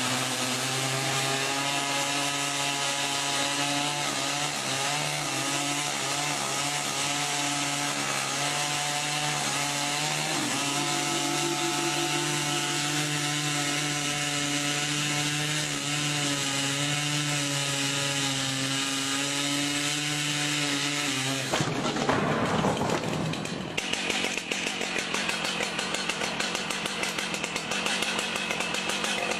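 Petrol chainsaw running steadily at high revs, cutting wood. About 21 seconds in, the steady engine tone gives way abruptly to a louder, rougher and noisier sound that falls in pitch over a couple of seconds, then settles into a ragged running sound.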